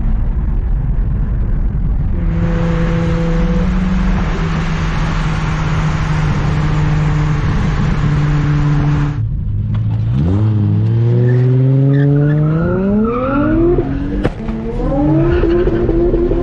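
Turbocharged Toyota 2JZ-GTE inline-six in a Nissan 200SX S14a, first held at a steady engine note under a loud hiss for several seconds. Then the revs climb steeply, break off sharply about fourteen seconds in as it upshifts, and climb again from a lower pitch.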